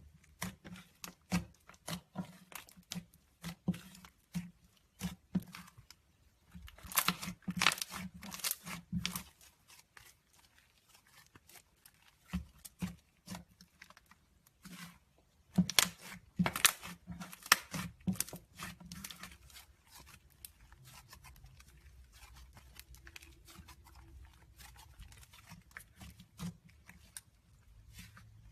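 Slime being squeezed, stretched and pressed by hand, giving irregular crackles, clicks and small pops. The crackling comes in dense spells about seven seconds in and again around sixteen seconds, then thins out over the last several seconds.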